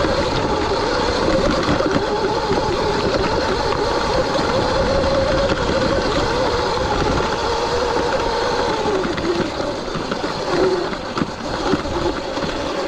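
Stock Sur-Ron X electric dirt bike on a dirt single-track climb: the electric motor's whine, wavering in pitch with speed, over a steady rush of tyre and riding noise. The whine sags in pitch about nine to eleven seconds in, then picks up again.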